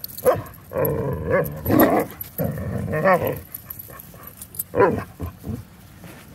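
Dogs vocalizing in play, with growly barks and whines in several bursts; the longest is about two to three seconds in and a last short one comes about five seconds in.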